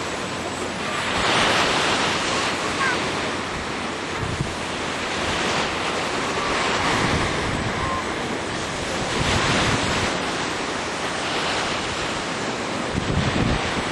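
Wind buffeting the microphone: a rushing noise that swells and eases every few seconds.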